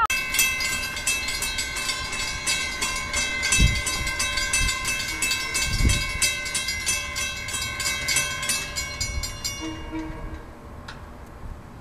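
Railroad grade-crossing bell ringing with rapid, evenly repeated strikes that leave a lingering ring, then stopping about ten seconds in.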